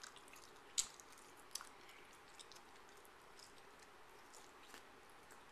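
Faint wet clicks and smacks of a mouth chewing a large wad of gum, irregularly spaced, with a sharper click about a second in.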